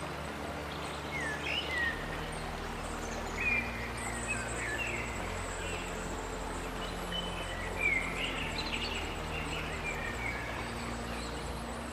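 Forest birds chirping and calling over the steady rush of a full stream, with soft sustained ambient music notes underneath.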